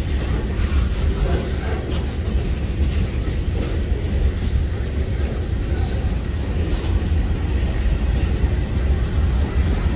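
Freight cars of a passing Norfolk Southern freight train, boxcars, a centerbeam lumber flatcar and covered hoppers, rolling by. Steel wheels on rail make a steady low rumble, with scattered clicks as the wheels cross rail joints.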